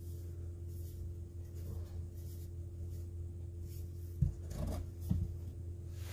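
A short bark-covered log being handled: bark rubbing against the hand, then two dull knocks about a second apart as it is set down upright on a wooden shelf. A steady low hum sits underneath.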